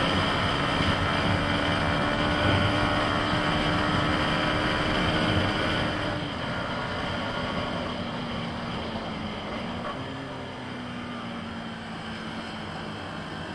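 Yamaha MT-15's single-cylinder engine pulling steadily at road speed, then throttled back about halfway through as the bike slows, its note dropping lower and quieter.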